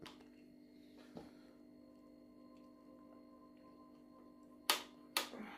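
Handling clicks from the brake lever and throttle being fitted onto an electric scooter's handlebar: a faint tap at the start and another about a second in, then two sharp clicks half a second apart near the end. A faint steady hum runs underneath.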